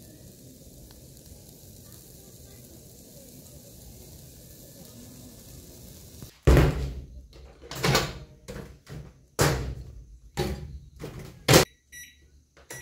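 A steady low rumble, then about seven loud, short knocks or thumps at irregular intervals over the last six seconds.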